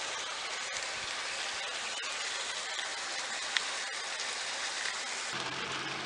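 A steady, even hiss with a few faint ticks. About five seconds in, a low steady hum with several tones comes in.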